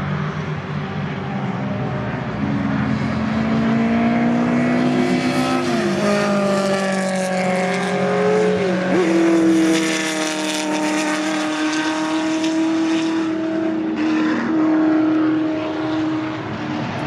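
Historic racing cars driving past at speed, their engine notes climbing and then dropping sharply at gear changes; the loudest is a Ford GT40's V8 passing close by.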